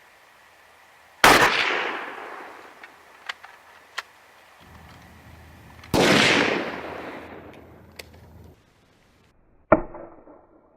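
Rifle shots from an 8mm Mauser firing 196-grain full metal jacket rounds: two loud shots about five seconds apart, each with a long echoing tail. A few light clicks come between them, and a third, sharper and shorter bang comes near the end.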